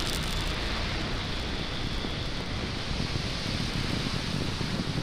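Falcon 9 first stage's nine Merlin 1D engines heard from the ground during ascent: a steady, low, noisy rush with no breaks.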